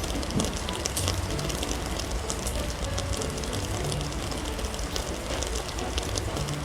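Steady rain, with many individual drops striking close by as sharp ticks over a low, steady rumble.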